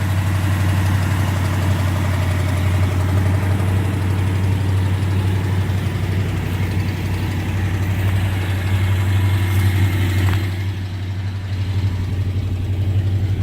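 1987 Jeep Grand Wagoneer's AMC 360 V8 idling steadily and quietly, exhausting through a new muffler that replaced the old glass packs. The higher part of the sound drops away about ten and a half seconds in, leaving the low hum.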